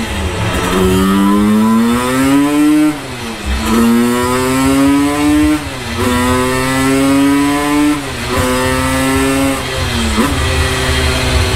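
Simson Schwalbe's single-cylinder two-stroke engine at full throttle on a roller dyno, pulling up through the gears. Its pitch climbs, then drops at each shift, about every two to three seconds, five times over, and it holds a steadier pitch near the end.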